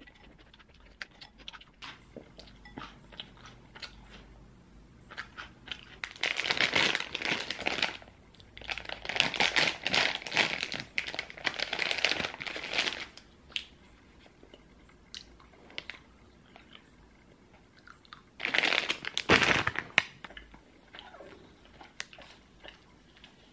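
Plastic Haribo gummy-candy bag crinkling loudly as it is handled and opened, in two long stretches of rustling and a shorter one near the end, with small clicks and taps in between.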